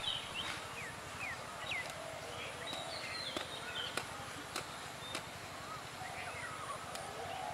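Birds chirping: many short, quick calls sliding up and down in pitch, over faint open-field ambience, with a few faint clicks.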